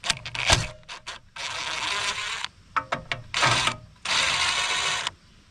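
A power drill run in three short bursts, the longest about a second, with clicks and knocks of handling between them.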